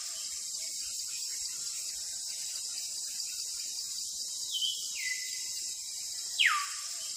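Steady high insect-like chirring, like crickets. Over it come two falling whistle-like glides: one steps down and holds about two thirds of the way in, and a quicker, louder one sweeps down near the end.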